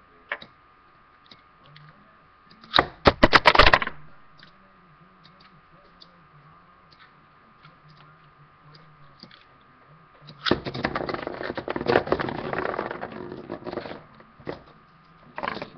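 Metal Beyblade spinning tops clashing in a plastic stadium: a rapid run of sharp metallic clacks about three seconds in, then from about ten and a half seconds a long spell of rattling collisions and scraping as one top wobbles, losing spin. One more short clash comes near the end.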